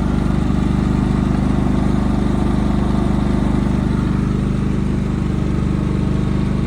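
Westinghouse 4000 peak watt dual-fuel portable inverter generator's small engine running steadily at an even speed.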